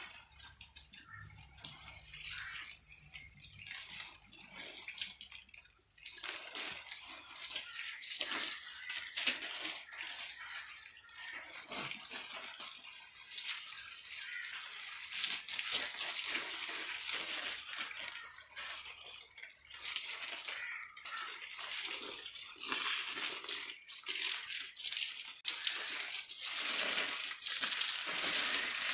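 Water spraying from a garden hose onto plants, leaves and a tree trunk, a continuous splashing hiss that grows louder about six seconds in.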